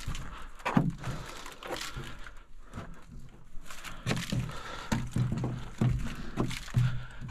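A person crawling and scrambling through a narrow earthen tunnel, making irregular thumps and scuffs of body, knees and hands against dirt and rock, with a slight echo.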